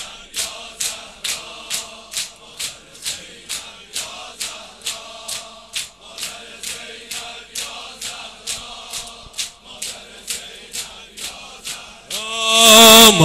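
Mourners' sineh-zani chest-beating: a steady rhythm of sharp hand slaps on chests, a little under three a second, over a faint low chant from the crowd. Near the end the reciter's amplified singing voice comes in loud.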